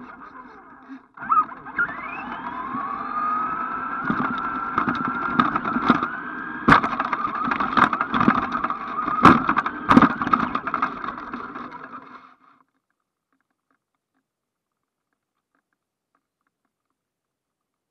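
Electric motor and gears of an ECX AMP radio-controlled truck, heard from a camera strapped to it: a whine that rises quickly as it accelerates, then holds at a steady pitch, with a few sharp knocks and rattles as the truck bounces over the grass. It stops suddenly about twelve seconds in.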